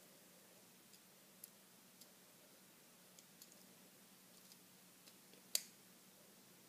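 Near silence, with a few faint clicks of small plastic Lego pieces being handled and one sharper click about five and a half seconds in.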